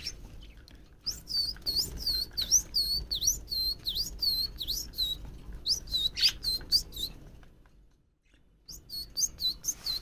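Young budgerigar chirping: a rapid series of short, high chirps, about three a second, breaking off for about a second near the end before starting again.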